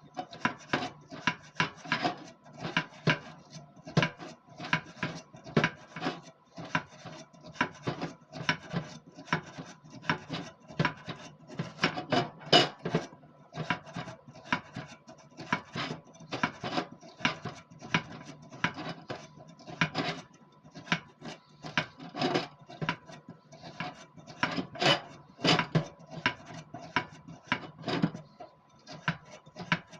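Irregular clinks and knocks of hard kitchen-fan parts being handled and scrubbed during cleaning, a few a second, with rubbing between them.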